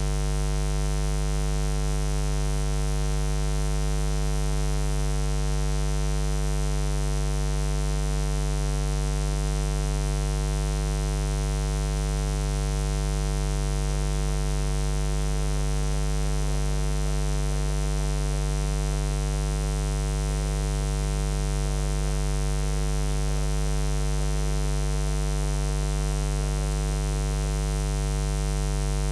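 Steady electrical mains hum: a constant buzzing drone with many evenly spaced overtones and no change in level. From about halfway through, faint wavering sounds lie beneath it.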